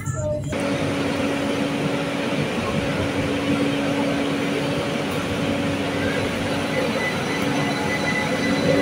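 ÖBB class 4024 Talent electric multiple unit running along a station platform: a steady rumble of wheels and rails, with the steady hum of its electric traction equipment, starting abruptly about half a second in.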